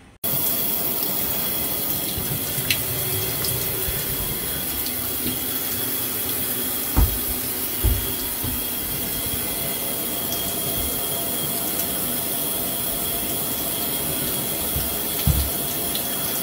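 Shower running steadily, water spraying down into a bathtub. A few dull thumps come through it: two about seven and eight seconds in, and one near the end.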